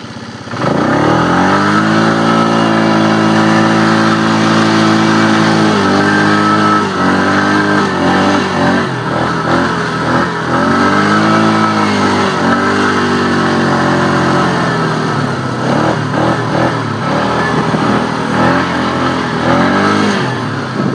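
A motor vehicle's engine is revved up sharply about half a second in and held at high revs, then rises and falls in pitch again and again as the throttle is worked.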